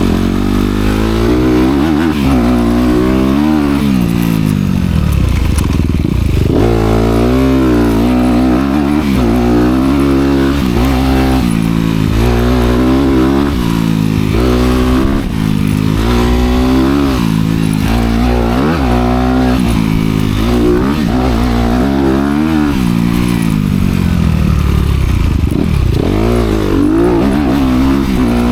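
Honda CRF250R dirt bike's single-cylinder four-stroke engine with its dual exhaust, revving hard and easing off over and over as the throttle is worked, its pitch climbing and dropping every second or two.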